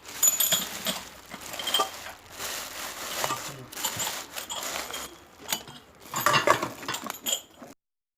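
Kitchenware being handled: dishes and utensils clinking and clattering in irregular sharp knocks, busiest about six seconds in. The sound cuts off abruptly near the end.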